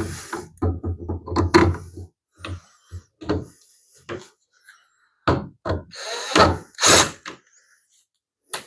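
Plastic pool ladder parts knocking and clattering as they are handled and a bolt is fitted through the handrail: a quick run of clunks in the first two seconds, then a few more knocks with some scraping about five seconds in.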